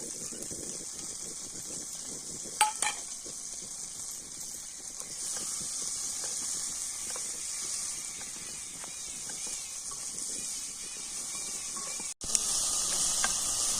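Green chillies, coriander and mint leaves sizzling steadily in hot oil in a pan as they are sautéed, with two sharp knocks of a utensil against the pan about two and a half seconds in.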